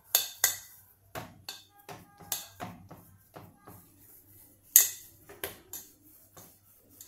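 Hands patting and pressing potato dough on a stainless steel plate, making a string of irregular sharp taps and clinks against the metal, with one louder clink about two-thirds of the way through.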